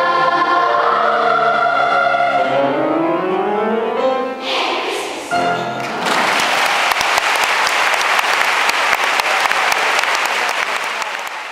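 Children's school choir singing the closing phrase of a song, ending on a held final chord about six seconds in, followed by audience applause.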